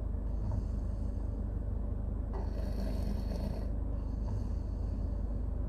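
A baby snoring, with a breath about every two seconds over a steady low rumble.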